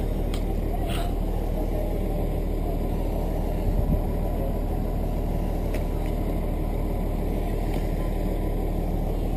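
Fire engine's engine running steadily at the fireground, a continuous low hum, with a few faint clicks.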